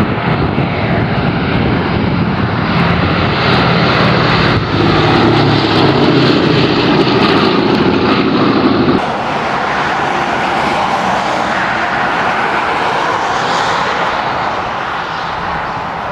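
Four radial piston engines of a B-17 Flying Fortress droning loudly as the bomber passes low overhead. About nine seconds in the sound drops abruptly to a quieter, more distant drone as the bomber approaches low again.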